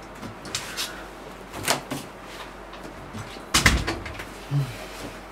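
Wooden room door being opened and pushed shut, with a few light knocks and a louder knock with a low thump about three and a half seconds in.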